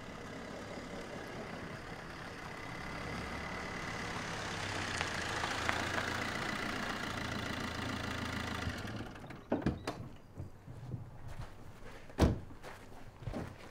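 Fiat hatchback's engine running as the car pulls slowly forward, growing a little louder towards the middle and stopping about nine seconds in. A few sharp knocks follow, the loudest a car door shutting.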